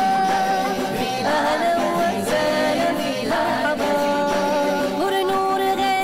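Background music: a sung naat, with long held and wavering vocal notes.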